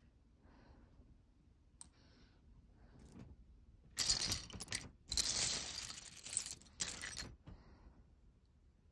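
Loose Lego pieces clicking and clattering as a hand rummages through the pile, with a few faint ticks at first, then two loud stretches of clatter starting about four seconds in and dying away after about three seconds.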